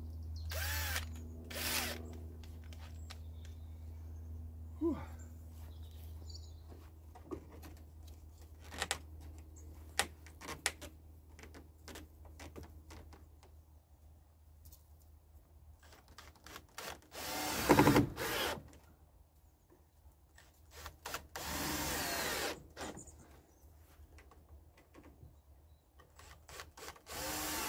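Cordless drill-driver running in several short bursts, driving screws into a timber beam, the longest burst about a second and a half. Scattered clicks and knocks fall between the bursts.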